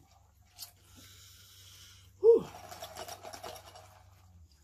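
Plastic straw handled and pushed into a plastic drink cup: a rustle, then a sharp squeak falling in pitch about two seconds in, followed by scraping and rattling of the straw in the cup.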